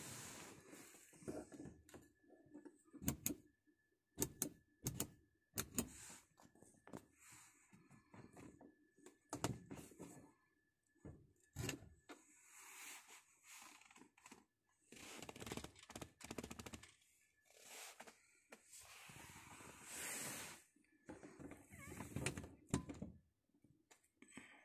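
Irregular sharp plastic clicks, taps and short rustles from fingers handling an Audi A4 B8's overhead interior light housing and pressing a T10 wedge LED bulb into its socket.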